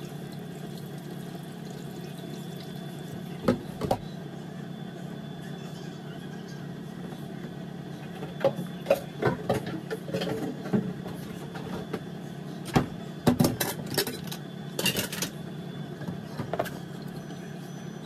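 A spatula scraping and tapping against a mixing bowl and a metal baking pan while cream is spread over fruit: scattered short clicks and knocks, a couple about four seconds in and a busier run in the second half. A steady low hum runs underneath.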